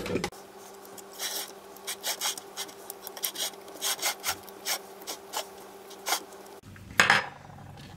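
Table knife spreading Nutella across a thin crêpe on a china plate: quick, repeated scraping strokes, a few a second, with the blade rasping over the crêpe and the plate, and one louder stroke near the end.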